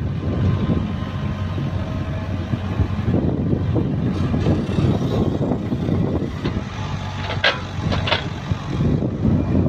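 Sumitomo mini excavator's diesel engine running under load while the hydraulic arm digs and lifts a bucket of soil, with two sharp knocks from the working bucket and linkage near the end.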